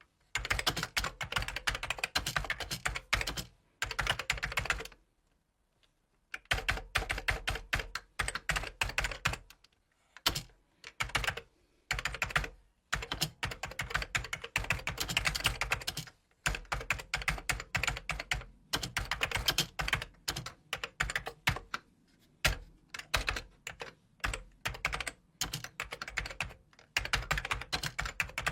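Typing on a computer keyboard: fast runs of key clicks in bursts of a few seconds, broken by short pauses.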